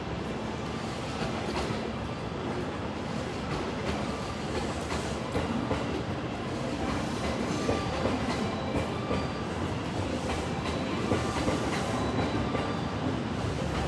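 A JR West 227-series electric multiple unit rolling past at low speed, its wheels clacking over rail joints and points, growing slowly louder as it nears.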